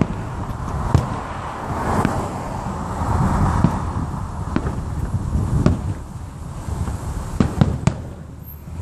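Aerial fireworks shells bursting: a string of sharp bangs at irregular intervals, roughly one a second and coming faster near the end, over a steady low rumble.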